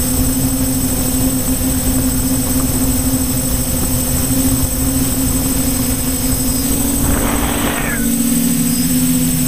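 Quadcopter's electric motors and propellers humming at a steady pitch, heard from the camera on board, with a low wind rumble on the microphone. About seven seconds in, a brief rush of noise passes over the hum.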